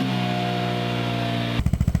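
A steady, even drone of several held tones, then, about one and a half seconds in, an abrupt cut to a Vespa GTS 300's single-cylinder engine idling through a Mivv Delta Race exhaust, with loud, quick, evenly spaced exhaust pulses.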